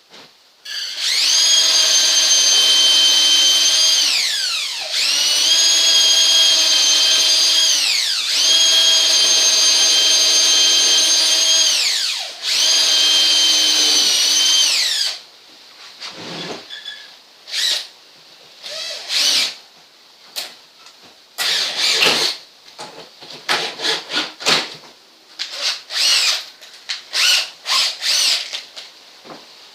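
Power drill running at full speed in four long runs, each whine dropping in pitch as the trigger is let go, into hard purpleheart wood. After that come many short, quick bursts of the drill.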